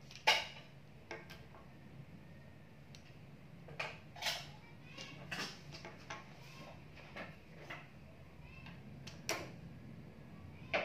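Coloured pencils being handled and set down on a tabletop: irregular light clicks and taps, the loudest one just after the start.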